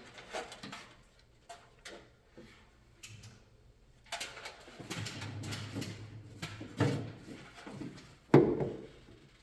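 Wiring harness being handled and laid in place: scattered clicks and rustling, with one sharp, loud knock about eight seconds in.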